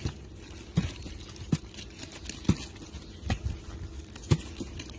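About five sharp taps or knocks at uneven intervals, some with a low thump, over a faint steady hum.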